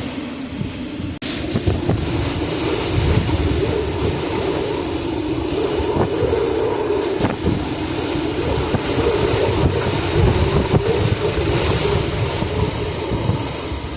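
Hurricane-force wind in a major hurricane's outer eyewall, blowing continuously in gusts with a howl, and buffeting the microphone.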